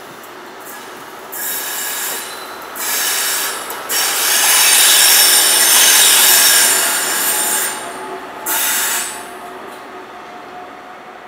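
High Speed Train's wheels squealing against the rails on a curve, in repeated high-pitched bursts. It is loudest for a few seconds in the middle, with one short last burst, then fades to a low rumble as the train draws away.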